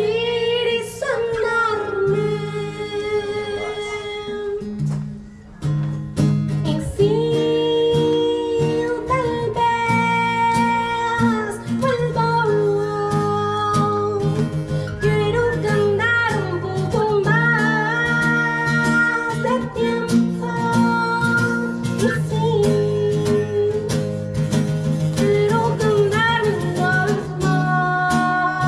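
Live acoustic song: a female voice sings long held notes over an acoustic guitar, with a brief dip about five seconds in.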